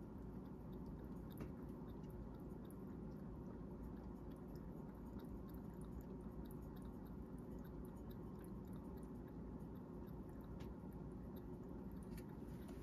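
A cat lapping water from a glass bowl, a continuous run of quick, wet laps.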